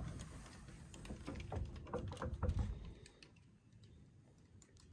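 Faint footsteps on wooden dock boards: a string of light knocks and clicks that dies away after about three seconds.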